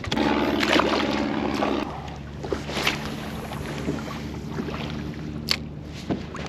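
Fishing kayak on the water: a fast whirring for about the first two seconds, like a spinning reel being cranked, over a steady low hum from the kayak's drive, with a few sharp clicks or light splashes later on.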